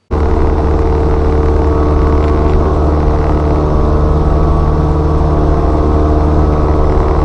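Light aircraft's piston engine and propeller running steadily at power, a constant drone with rushing wind noise, heard close to the engine cowling during a go-around. It starts abruptly at the very beginning.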